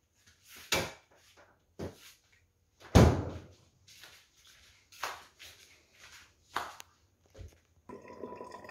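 A string of separate knocks and thumps from a phone camera being handled, carried and set down on a kitchen counter, the loudest about three seconds in.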